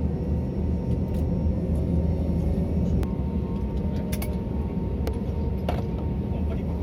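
Steady low rumble of an airliner's cabin on the ground after landing, with a faint steady whine and a few sharp clicks about three, four and five and a half seconds in.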